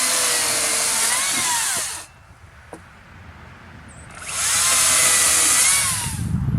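Makita XCU08 36V cordless top-handle chainsaw cutting wood in two runs of about two seconds each, falling quiet between them when the trigger is released. The motor's whine dips and rises as the chain loads in the cut.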